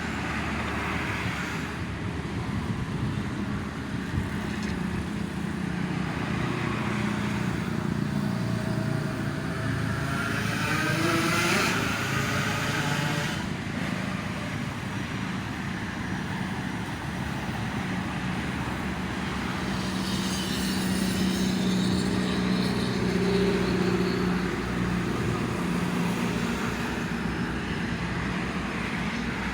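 Steady toll-road traffic with vehicles passing one after another. About ten seconds in, one engine rises in pitch as it speeds up.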